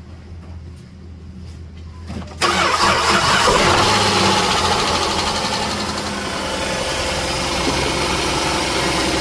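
2008 Dodge Journey engine being started: it cranks briefly and catches a little over two seconds in, runs fast, then settles toward idle. The mechanic suspects this engine of rod knock or main bearing failure, with fine metal filings in its oil.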